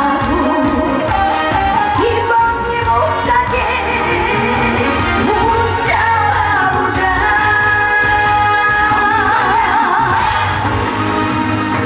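Live trot song: a woman singing with wavering vibrato over a full band backing with a steady beat.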